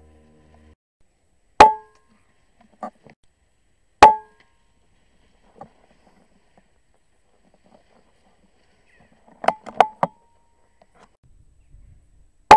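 Air rifle shots: sharp cracks with a short ring. Two come a couple of seconds apart, then three in quick succession near the end, with fainter knocks in between.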